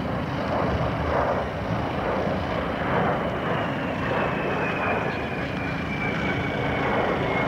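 Boeing B-52H Stratofortress's eight turbofan jet engines running as it flies past: a steady rush of jet noise with a high whine that slowly falls in pitch.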